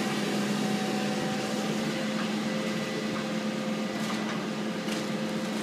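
A steady mechanical hum with a low, even tone over a hiss, like a running appliance or fan.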